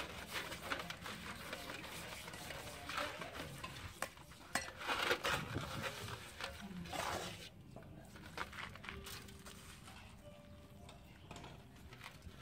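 Whole fish being washed and rubbed by hand in a large aluminium basin of water: splashing, wet slapping and knocks against the metal, busiest in the first seven seconds and quieter after.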